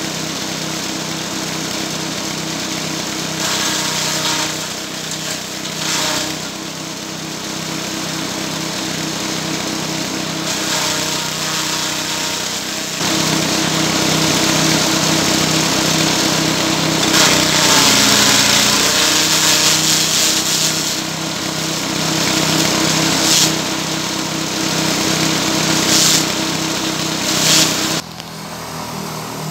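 Small engine driving a forage chopper, running steadily while rice straw and coconut fronds are fed through the blades. The shredding noise swells louder several times as material goes in, and the engine pulls down briefly under load about halfway through. The sound drops in level near the end.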